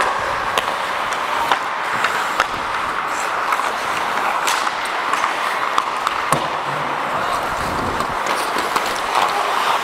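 Ice hockey play: skate blades scraping and gliding on the ice, with sharp clacks of sticks and puck scattered throughout.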